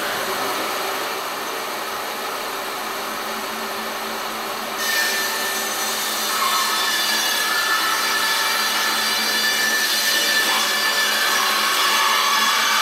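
Laguna bandsaw running and ripping through a large log held in a Logmaster carriage. About five seconds in the cut grows louder and brighter, with a whine that wavers in pitch as the blade works through the wood.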